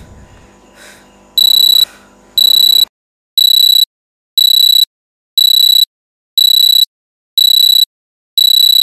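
Smartphone alarm going off: a high-pitched electronic beep repeating about once a second, each beep about half a second long, eight beeps in all. A fading low sustained tone underneath cuts off about three seconds in.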